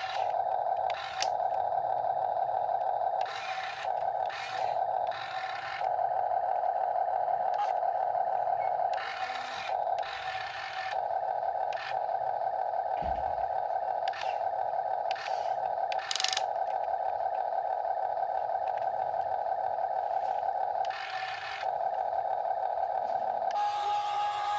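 Huina 1/14 scale RC excavator's electric motors and gearboxes whining steadily, with repeated short bursts of scraping as it digs.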